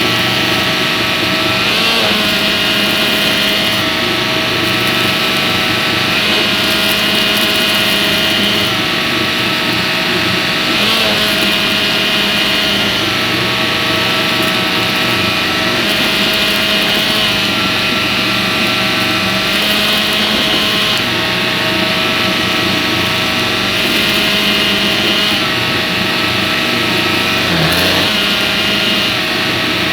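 Shark vacuum cleaner running steadily while vacuuming. Its motor whine shifts slightly in pitch every few seconds.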